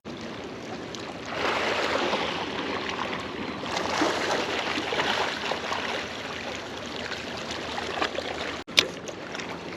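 Water splashing and rushing, a steady rough wash that swells about a second in.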